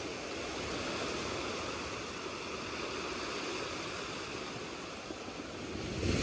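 Small waves washing up on a dark pebble beach: a steady hiss of surf and water over the stones, swelling near the end as the next wave comes in.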